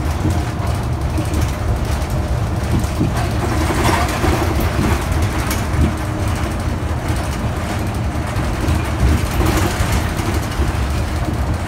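Cabin sound of a 2019 New Flyer XD60 articulated diesel bus: a steady low engine and running rumble, with extra rattling about four seconds in and again near the end.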